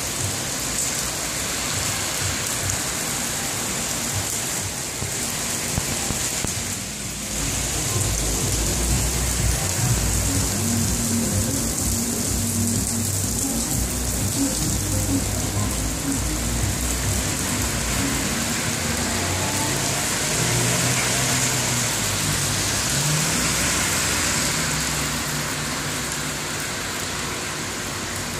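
Heavy rain falling steadily on wet pavement, a dense continuous hiss. From about seven seconds in, car engines and tyres on the wet road add a low rumble that eases off near the end.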